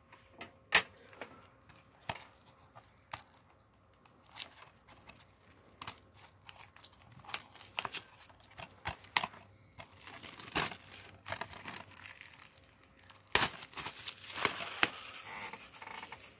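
Plastic shrink-wrap on a DVD case crinkling and tearing as it is slit and pulled off, in scattered sharp crackles that grow busier and louder near the end.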